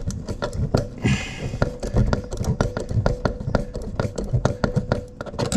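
Flat-head screwdriver tightening the centre screw of a stainless steel sink's plug-hole waste: a run of sharp metal clicks and scrapes, several a second, as the blade works against an unusually tight screw.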